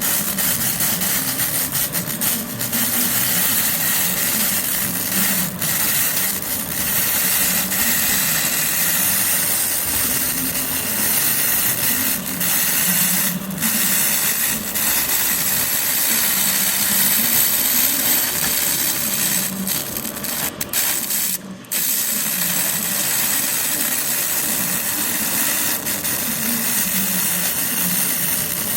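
200 W pulsed laser cleaner ablating hardened oil off a cylindrical grinder's metal surface: a loud steady hiss with a wavering low hum underneath, breaking off for a moment about two-thirds of the way through.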